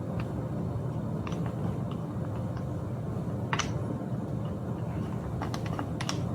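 Scattered light metallic clicks and taps of hand tools working the clamp bolt of a bicycle saddle, over a steady low hum.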